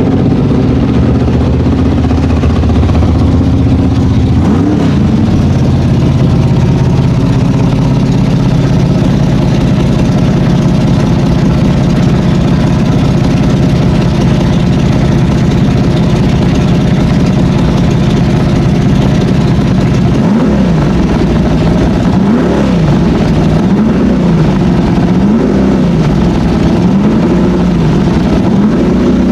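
Car engine idling, blipped once a few seconds in, then revved up and down in a string of quick blips through the last third.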